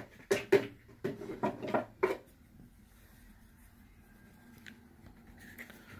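A few short knocks and clatters of plastic vacuum-cleaner parts being handled in the first two seconds, then quiet room tone.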